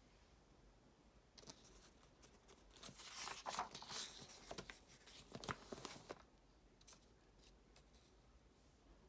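A paper page of a printed workbook being turned by hand: a few seconds of crisp rustling and crackling, loudest in the middle, followed by a few faint ticks as the sheet settles.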